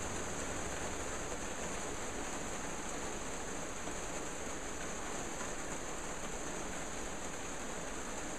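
Steady, even hiss with a brighter high band and no distinct sounds standing out.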